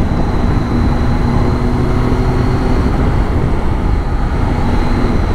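Triumph Tiger 800's three-cylinder engine running at a steady cruise, with wind rushing over the microphone at road speed.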